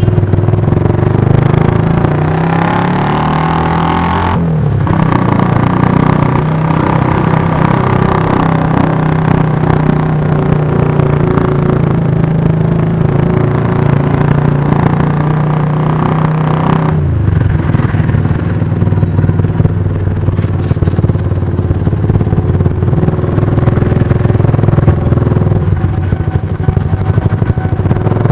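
Motorcycle engines running while riding in slow street traffic, with a steady engine note that shifts in pitch as the bikes speed up and slow down, changing sharply a little past halfway.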